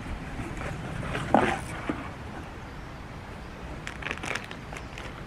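Unpacking noise: a black strap harness with plastic buckles being handled and lifted out of a foam-lined cardboard box, with one brief loud thump about a second in and a cluster of light buckle clicks near the end. A low rumble of wind on the microphone runs underneath.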